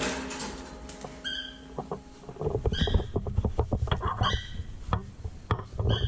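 A pet cockatiel giving short chirping calls, several times. Clicking, rustling handling noise and a low rumble fill the second half.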